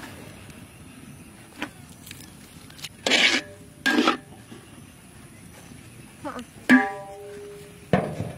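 A metal spatula scraping and knocking in a large steel wok of steamed rice, with a ringing metal clang about two-thirds of the way through and a clank as the metal lid goes onto the wok near the end.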